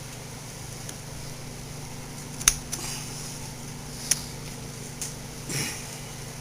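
A few sharp clicks of small metal parts being handled as a snap ring is worked onto the shaft of a Briggs & Stratton electric starter, the loudest about two and a half seconds in, over a steady background hum.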